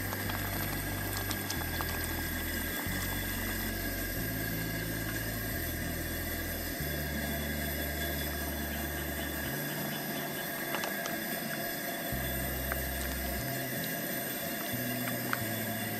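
Background music with a slow bass line stepping from note to note, over a steady hiss.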